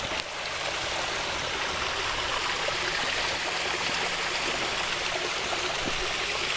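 Water running steadily down a small rock-lined garden stream, an even babbling trickle over stones.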